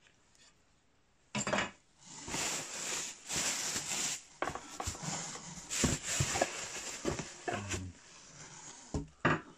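Packaging and small bench-drill accessories being handled during unboxing: irregular rustling with light knocks and clinks of parts, starting about a second and a half in.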